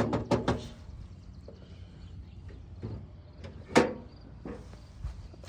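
Hand tools clattering and knocking as they are moved around in a plastic crate: a few knocks in the first half second, then a single sharp knock a little before four seconds in.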